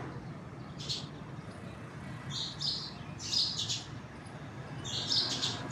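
Small birds chirping in short high bursts, about four times, over a steady low hum.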